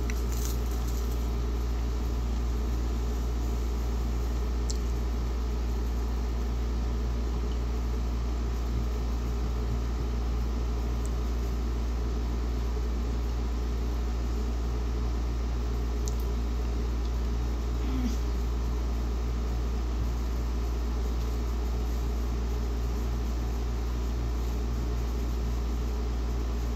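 Steady low hum and hiss of a small room's background noise, like a fan or air conditioner, unchanging throughout, with a few faint clicks.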